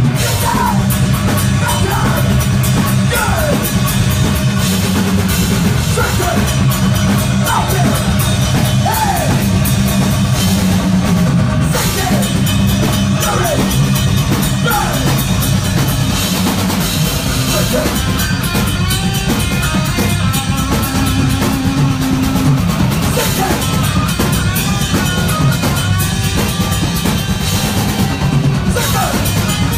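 Live heavy metal band playing loud: distorted electric guitars and bass over a pounding drum kit, with vocals at the microphone.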